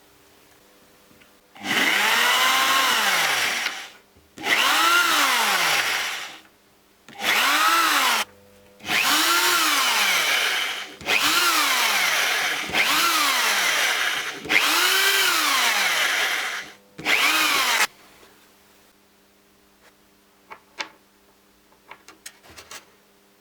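A small electric power tool's motor run in about eight short bursts, each spinning up and then slowing as the trigger is released. A few light ticks follow near the end.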